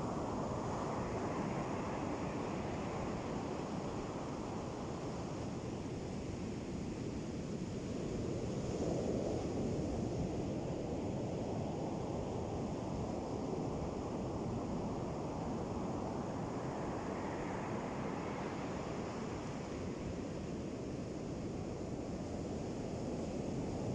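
Ocean surf washing onto a beach in slow swells, building about every eight or nine seconds over a steady rush of water, with wind noise on the microphone.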